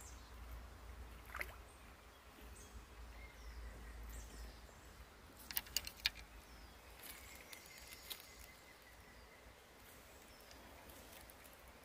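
Faint waterside ambience with a cluster of sharp clicks and handling noises a little past the middle, while a small fish is being landed on the line. A faint thin high call sounds twice in the background.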